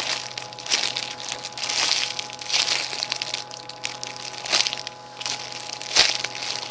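Strawberry foam squishy toy being squeezed and handled close to the microphone: repeated rustling, crinkling rubs, with a sharp click near the end.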